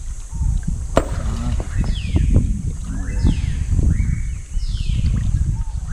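River water sloshing and churning as hands reach in among the rocks, with a sharp knock about a second in. Over it, a bird repeats a falling call about once a second.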